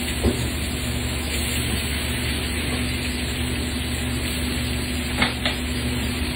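Steady kitchen background noise: an even hiss over a low, constant hum, broken by a few light clicks, once near the start and twice about five seconds in.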